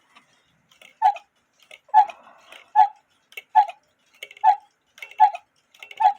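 Austrian quarter-hour cuckoo clock's movement ticking steadily, the clock running under repair: a strong tick about every 0.8 s with a softer click between each.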